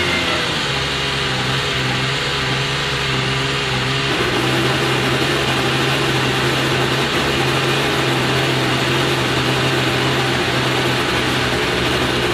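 Alfa Romeo 155 DTM's 690RC 2.5-litre naturally aspirated V6 race engine idling steadily, heard from inside the stripped racing cabin, its note shifting slightly about four seconds in.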